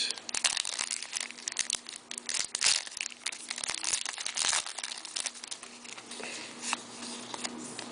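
Hockey card pack wrappers crinkling and tearing as packs are opened and the cards handled: a dense run of crackles that thins out after about five seconds.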